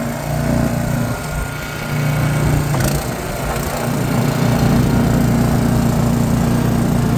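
Small gas engine of a snowblower running, getting louder and steadier about four seconds in as the machine is put to work clearing snow.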